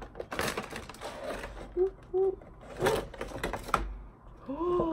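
Clear plastic blister packaging crackling and clicking as it is slid out of a cardboard box, with a few sharp clicks among the rustle. A person hums briefly twice, in the middle and near the end.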